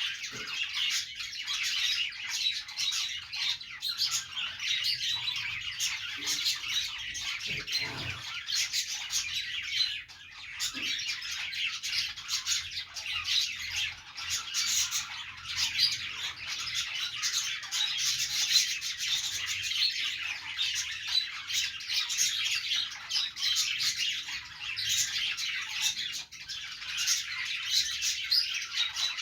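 A flock of pet budgies (budgerigars) chattering and chirping continuously, many high warbling calls overlapping, with a brief lull about ten seconds in.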